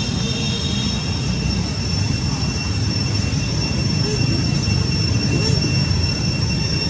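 Steady outdoor drone: a constant high-pitched insect whine over a low, even rumble like wind on the microphone.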